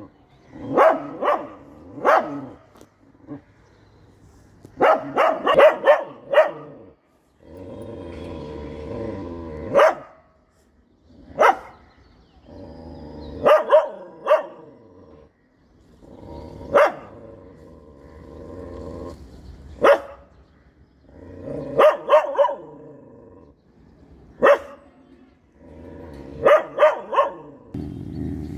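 Pet dog barking at grey langur monkeys in repeated bursts of several sharp barks, with long, drawn-out growls between the bursts: a guard dog's alarm at monkeys close to the house.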